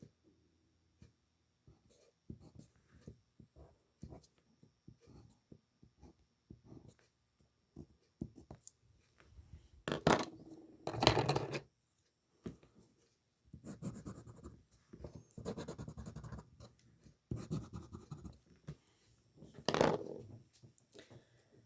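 Drawing strokes on paper: a pen or marker scratching in short dabs at first, then longer, louder sweeping strokes from about ten seconds in.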